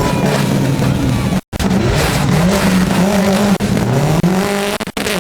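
Rally car engine under hard acceleration, its pitch climbing and dropping back several times as it shifts through the gears. The sound cuts out completely for a moment about a second and a half in.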